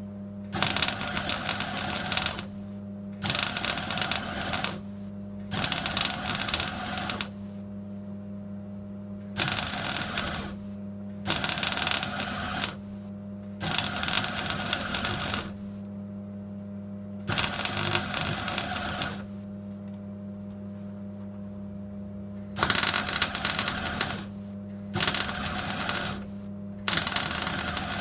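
Welder crackling in about ten short bursts of one to two seconds each, with a steady low electrical hum between them: a steel heel board repair panel being seam welded in short runs.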